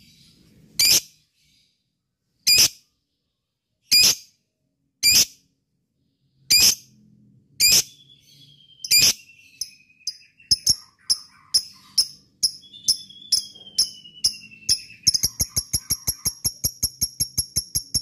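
Lovebird calling in shrill chirps, one every second or so at first, then faster from about ten seconds in until they run into a rapid string of about five a second: the build-up into ngekek, the long chattering trill of a fighter lovebird. A thin whistle slides downward twice in between.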